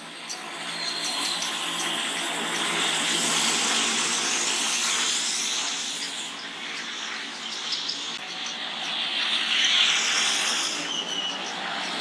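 Heavy traffic passing on a wet road: a Mitsubishi Fuso flatbed truck drives by with its engine running and tyres hissing on the wet tarmac, the sound building over the first few seconds. More tyre swish follows from the vehicles behind it, loudest near the end.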